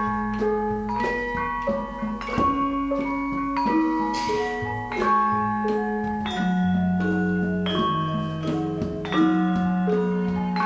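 Central Javanese gamelan playing: bronze metallophones strike a steady run of ringing notes over sustained low gong tones.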